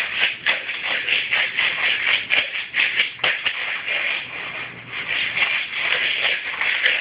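Beads being shaken, rattling in quick, uneven shakes that ease off briefly a little past the middle and then pick up again.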